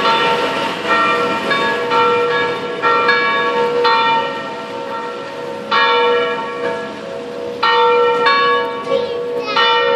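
A pair of electrically swung church bells with wooden headstocks rings together in an irregular, overlapping pattern of clapper strokes, each stroke leaving a long ringing tone. There is a brief lull about four to five seconds in, before the strokes come thick again.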